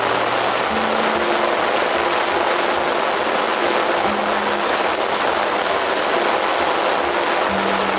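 Steady rain falling, an even hiss, with faint low held notes of background music underneath.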